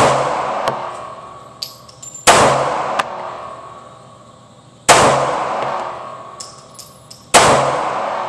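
Kel-Tec PF9 9mm pistol firing slow aimed shots, one about every two and a half seconds, each crack ringing out in a long echo. Light metallic clinks fall between the shots, likely spent brass landing.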